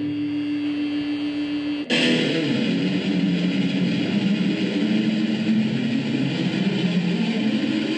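Electric guitar playing with an effects unit: one sustained note, then about two seconds in an abrupt switch to fuller, busier playing.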